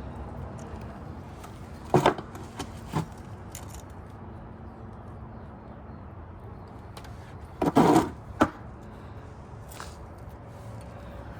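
Sharp clunks and clatters of metal parts being handled and knocked while carburetors are worked into rubber intake boots on a motorcycle. There are a few knocks about two to three seconds in and a louder burst of them near eight seconds, over a steady low hum.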